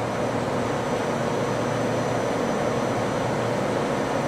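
Steady mechanical drone with a faint hum and a thin high whine, unchanging throughout: the powered-up but idle machining center and its shop surroundings.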